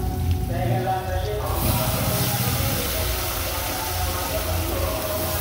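Onions frying in hot oil in an aluminium pot, a steady sizzle; about a second and a half in it turns suddenly louder and more hissing as dry split moong dal is poured into the hot oil.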